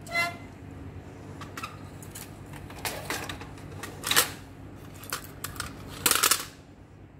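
Plastic projector casing parts and a screwdriver being handled and set down on a tile floor. A short ringing clink comes first, then scattered clicks and knocks: the sharpest just after four seconds and a rattling cluster around six seconds, over a steady low hum.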